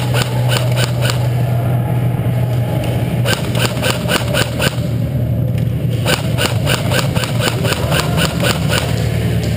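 A steady low mechanical hum, with runs of sharp, evenly spaced ticking at about five a second that stop and start twice.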